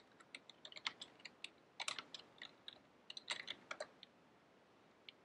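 Typing on a computer keyboard: a quick, irregular run of key clicks for about four seconds, then a single click near the end.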